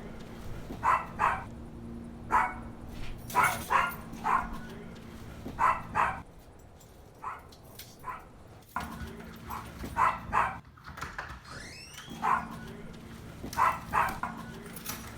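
A dog barking repeatedly, mostly in quick pairs, over a steady low hum.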